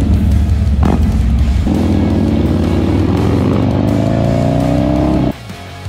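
Harley-Davidson V-twin motorcycle engine accelerating hard, its note rising steadily for several seconds over a deep rumble, then cutting off abruptly about five seconds in.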